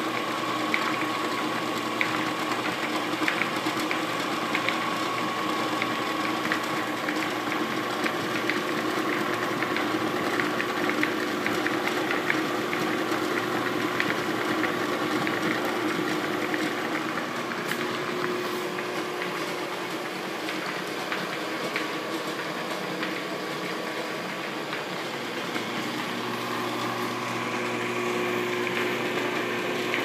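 Electric motor running steadily, spinning a wooden bandsaw wheel on its shaft, with a steady hum. A turning tool held against the spinning wooden rim adds a light, ticking scrape, mostly in the first half.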